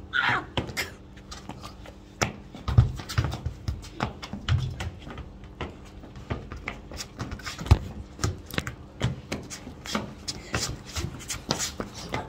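Rapid taps and scuffs of trainers stepping and twisting on hard ground close by, with a few heavy thumps of feet landing or the football being struck. A short high squeal falls away at the very start.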